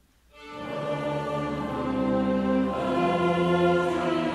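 A mixed choir and a small string orchestra with winds start a piece together about half a second in, singing and playing slow, held chords.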